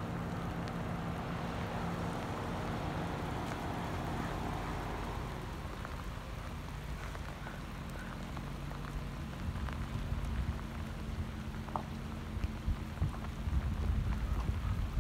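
Wind buffeting the microphone over a steady low hum, the gusts getting stronger in the second half.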